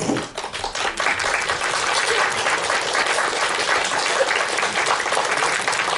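Audience and children applauding: dense clapping that starts suddenly and holds steady.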